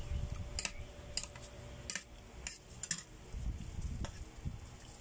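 Metal fork and spoon clinking against a ceramic plate of spaghetti, about six light clinks in the first three seconds, over low muffled handling and mouth noise.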